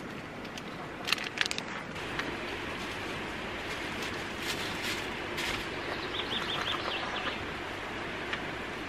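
Steady rushing noise of outdoor water, with a bird calling in a quick run of about five high chirps around six seconds in. A few sharp clicks or knocks about a second in are the loudest sounds.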